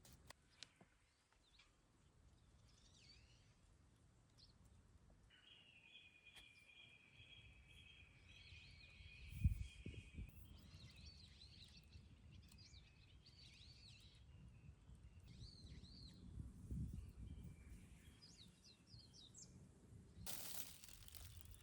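Faint birds chirping, with scattered short calls and one long steady trill lasting several seconds, over a quiet background. A low thump sounds about halfway through, and a hiss of noise starts near the end.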